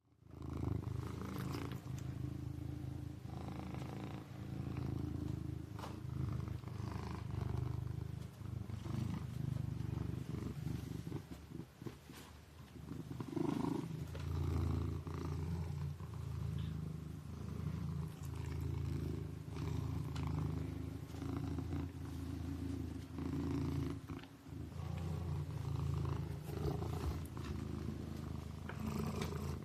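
Kitten purring steadily, the low purr swelling and easing in a regular rhythm with its breathing.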